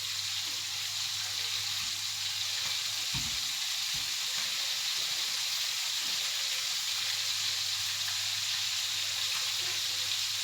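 Flour-coated chicken pieces frying in hot oil, a steady even sizzle.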